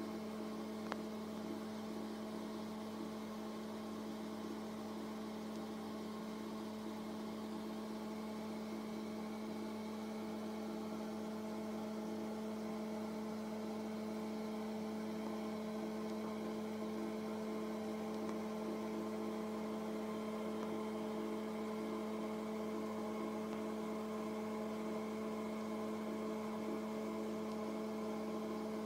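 A steady electrical hum made of several even tones, with a faint click about a second in.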